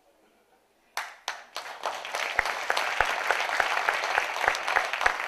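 Audience applause: a second of quiet, then a few scattered claps about a second in that quickly swell into steady applause from a hall full of people.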